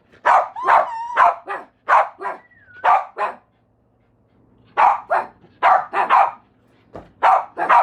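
A dog barking repeatedly in short, sharp barks, often two at a time, with a pause of about a second around the middle. A couple of thin, gliding whines come in between the barks early on.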